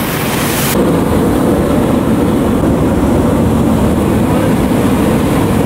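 Hot air balloon's propane burner firing, a steady loud roar; the upper hiss dulls slightly under a second in.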